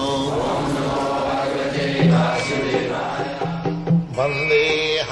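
Devotional chanting set to music: a voice sings a mantra-like melody over a steady drone, with short struck notes entering in the second half.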